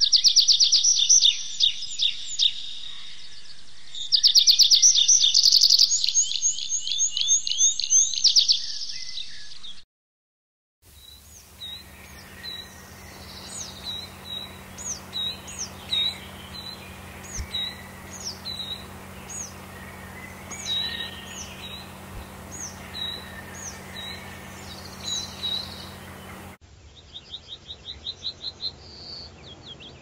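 Tree pipit singing two loud trilled song bouts. After a brief gap about ten seconds in, a coal tit repeats short, high, evenly spaced notes over a low steady hum. Near the end a yellowhammer starts a fast series of repeated notes.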